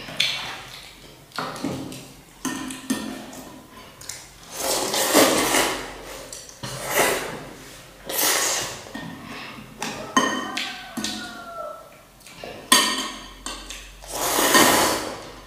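Instant noodles being slurped from a ceramic bowl in long noisy pulls of about a second, several times over, with a spoon and chopsticks clicking against the bowls in between.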